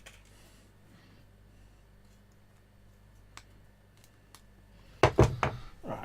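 Small objects handled on a workbench: a couple of faint ticks, then a quick cluster of sharp knocks and clatter about five seconds in, over a steady low electrical hum.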